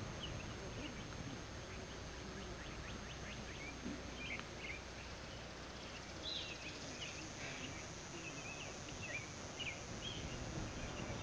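Faint outdoor ambience: small birds chirping briefly and irregularly over a steady background hiss.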